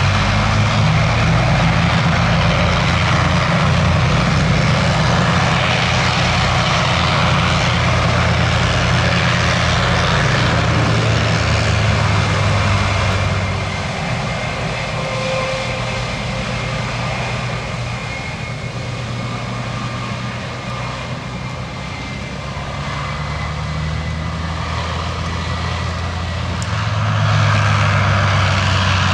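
Lockheed Super Constellation's four Wright R-3350 radial piston engines running with a steady deep propeller drone. It eases off in level about halfway through and builds up loud again near the end.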